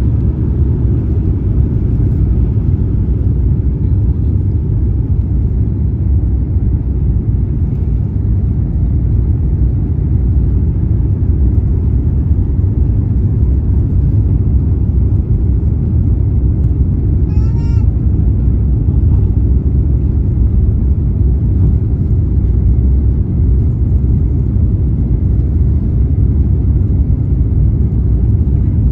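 Airbus A350's Rolls-Royce Trent XWB jet engines running: a steady, unbroken low rumble. A brief high-pitched call cuts in once, about two-thirds of the way through.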